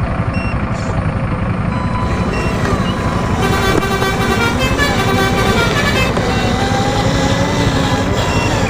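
Truck engine running steadily, with a horn sounding for about two and a half seconds in the middle.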